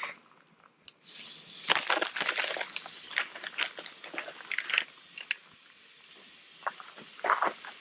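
Raw burger patties laid on a hot grill grate over a wood campfire, starting to sizzle about a second in: a steady hiss with irregular crackles and pops over it.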